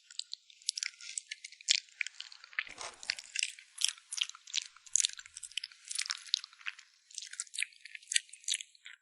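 Close-miked chewing of a dessert: a fast run of crisp, crackly crunches and bites, with one fuller, deeper crunch about three seconds in.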